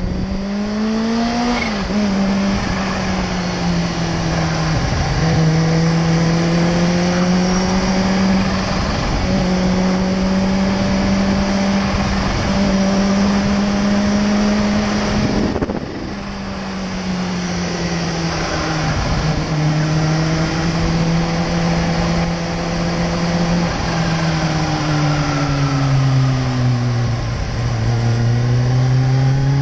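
Sport motorcycle engine cruising at fairly steady revs, heard from on the bike with wind noise. The revs climb and drop about a second and a half in, then dip and recover several more times, and fall off briefly just past the middle.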